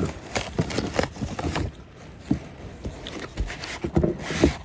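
Handling noise: irregular clicks, taps and rustles of items and packaging being handled, with a brief voice fragment near the end.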